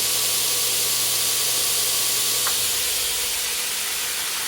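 Belt grinder running with a steady hiss and low motor hum; about halfway through a click comes, the hum drops in pitch and the sound begins to fade as the grinder winds down.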